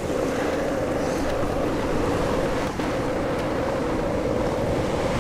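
Ocean surf and wind on the microphone: a steady, even rushing with no distinct events.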